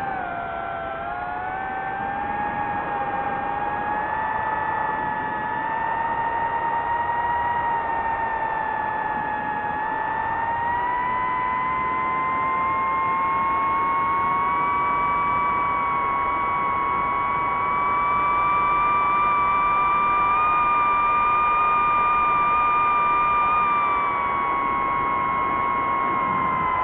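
FPV drone's electric motors and propellers whining steadily in flight over a hiss of rushing air. The pitch rises gradually about midway and dips again near the end.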